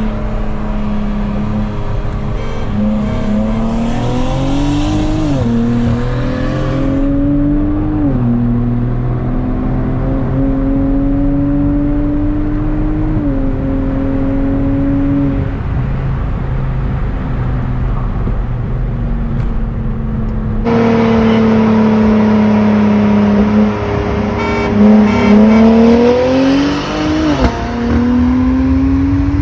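Car engine at full throttle in a roll race from about 40 mph, its pitch climbing through each gear and dropping at every upshift, several times over. About 21 seconds in the sound cuts to a louder recording of the same kind of hard pull with more upshifts.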